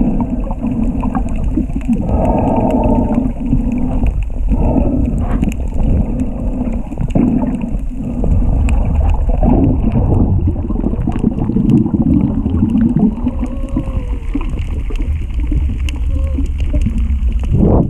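Muffled underwater bubbling and gurgling over a steady low rumble, swelling and fading irregularly.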